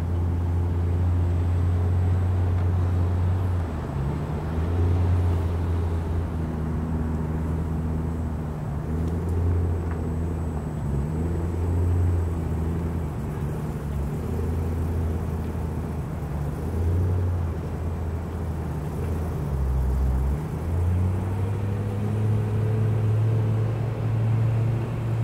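A large engine running steadily with a low, droning hum, its pitch dipping and shifting every few seconds.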